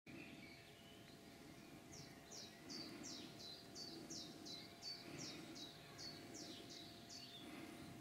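A small songbird singing a long, even series of short, high, descending notes, about three a second, starting about two seconds in and stopping near the end, over a low steady outdoor background rumble.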